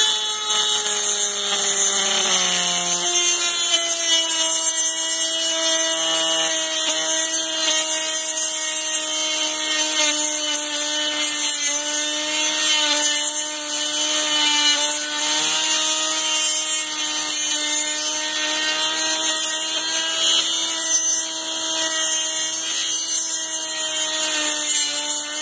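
Dremel rotary tool on a flex shaft running wide open, its bit grinding the port of a Husqvarna 372 XP chainsaw's aluminium cylinder: a steady high whine over a gritty grinding hiss. The whine sags slightly in pitch over the first few seconds as the bit bites into the metal.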